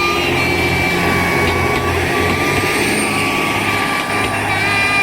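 Diesel train running past close by: a steady engine drone with a high whine that breaks off and comes back at a slightly different pitch every second or so.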